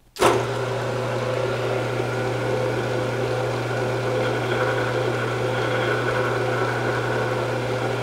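Small benchtop metal lathe starting up abruptly a moment in, then running steadily with its chuck spinning: a strong low hum with a steady whine above it.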